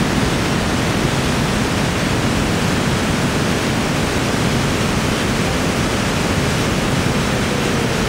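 Waterfall rushing through a narrow rocky chute: a loud, steady noise of falling water.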